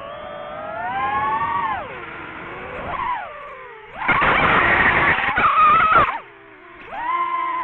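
DJI FPV drone's motors whining, the pitch rising and falling with the throttle, then a loud harsh racket for about two seconds as the propellers strike pine branches. The motors drop off, then whine back up near the end.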